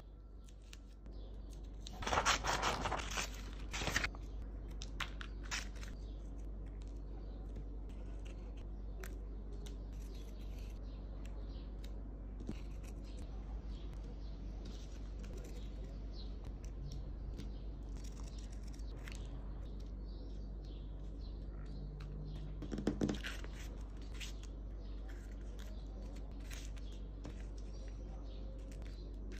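Paper being handled: sheets and laminated paper cut-outs rustling, scraping and crinkling on a table, with small scattered ticks. There are louder crinkly rustles about two seconds in, again about four seconds in, and once more near the end. A steady low hum runs underneath.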